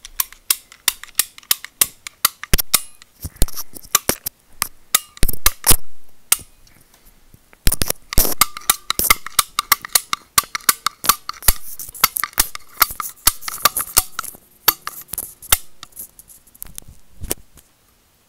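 Rapid, irregular clicks and snaps of a BrassCraft hand-held pipe cutter being worked close to the microphone, its jaw and blade opening and closing, with a couple of short pauses.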